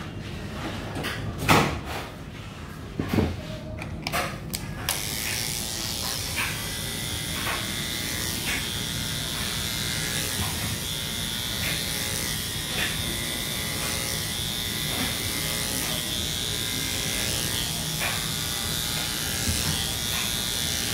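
A few knocks, then electric dog grooming clippers switch on about five seconds in and run steadily with a buzzing hum as they clip the dog's coat.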